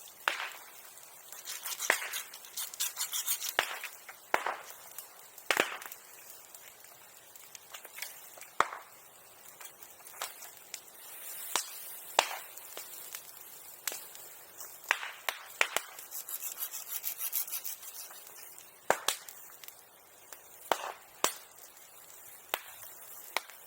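Bonfire burning old sericulture tools, crackling with sharp pops at irregular intervals and denser runs of crackle about two to four seconds in and again around sixteen seconds in.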